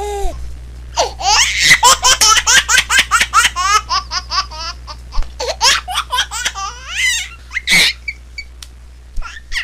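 A baby laughing: a rapid run of short giggles at about four a second, then slower laughs with a louder burst near the end.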